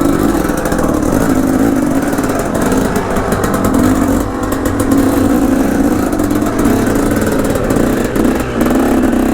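Dirt bike engine running under throttle, its revs swelling and dipping repeatedly.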